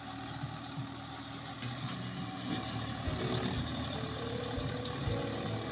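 Swaraj tractor's diesel engine running steadily under load as it pulls a tillage implement across a field.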